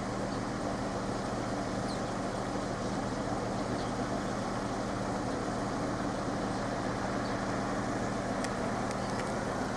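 Steady low hum of an idling engine over background street noise, holding the same pitch throughout.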